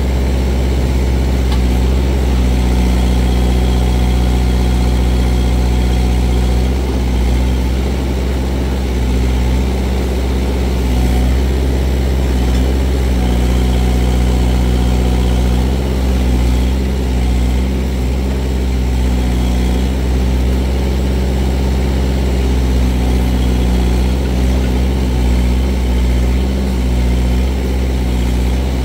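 Kubota L48 tractor-loader-backhoe's four-cylinder diesel engine running steadily while the backhoe digs, its level dipping slightly now and then.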